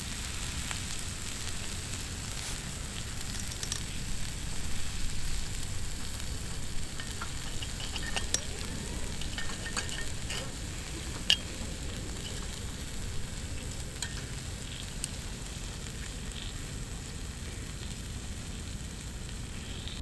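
Steak sizzling on a grill grate over a wood fire: a steady frying hiss with a few scattered sharp clicks and crackles.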